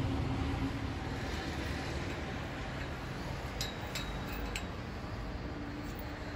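A low steady rumble slowly fading, with three or four light clicks about halfway through.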